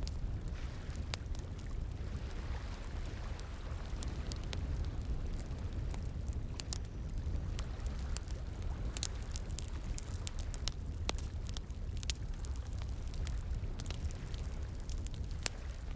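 Campfire crackling with sharp, irregular pops over the steady rush of flowing water.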